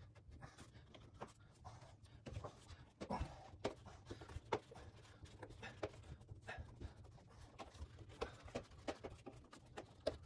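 Hands working the rubber door boot around the drum opening of an LG front-loading washer: faint, irregular rubbing and light clicks.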